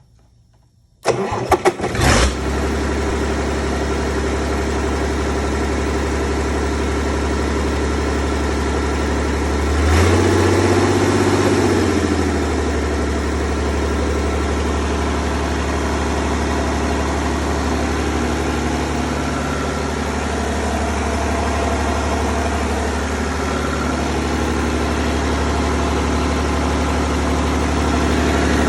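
Perkins 6.354 six-cylinder diesel engine starting about a second in, catching after a few strokes and settling into a steady idle. Around ten seconds in it is revved briefly for a couple of seconds, then drops back to idle.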